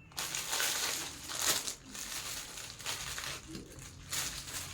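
Crinkly packaging rustling and crackling in irregular bursts as it is handled and opened.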